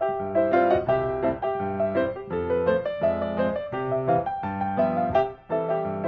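Background piano music: a steady run of notes over low chords.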